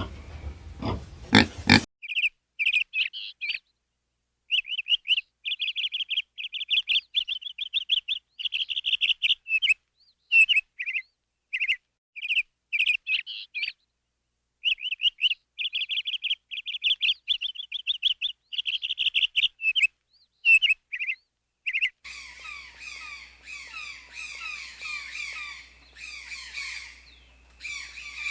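A pig grunting for the first two seconds, then a small bird chirping in quick, repeated trills broken by short pauses. About twenty seconds in, several birds chirp over a faint low hum.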